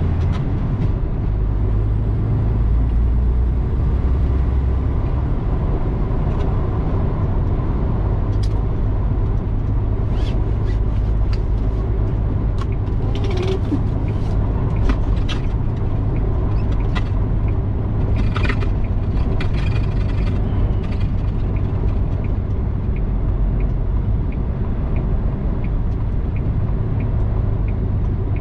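Semi-truck tractor running bobtail, without a trailer, at road speed, heard from inside the cab: a steady low engine drone with road noise. A scatter of short clicks and rattles comes about a third of the way in.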